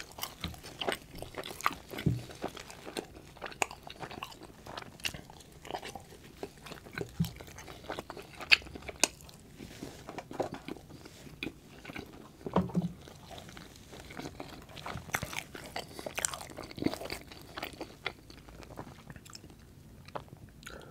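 Close-miked chewing of a slider sandwich, with sharp mouth clicks and smacks at irregular intervals.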